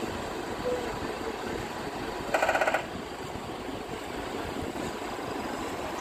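Steady running of construction machinery: a JCB backhoe loader's diesel engine with a small drum concrete mixer turning beside it. About two and a half seconds in comes a brief, louder buzzing burst.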